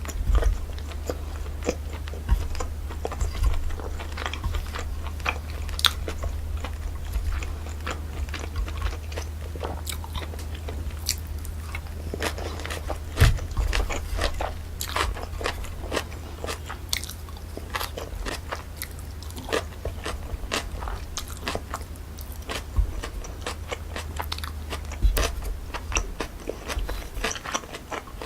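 Close-miked chewing and biting of cold pork trotters with jellyfish salad, a continual run of short, crisp crunches and wet clicks. A steady low hum runs underneath.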